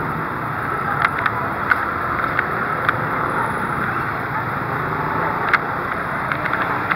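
Steady street traffic noise from passing motorcycles and tricycles, with wind on the microphone and about six sharp clicks scattered through.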